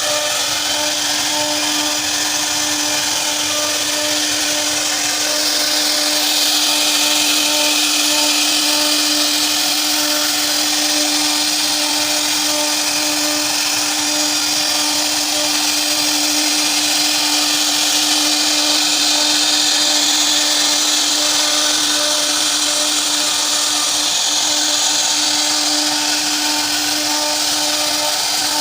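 CNC router spindle running at a steady high pitch while its bit carves a wooden door panel, with a hiss of cutting that grows a little louder about six seconds in.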